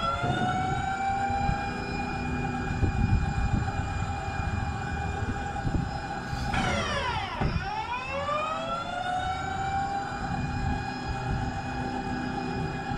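Tank's powered turret traverse drive whining as the turret swings round: the whine climbs in pitch as it speeds up, holds steady, then about six and a half seconds in dips down and climbs again as the turret slows and swings back the other way, over a low rumble.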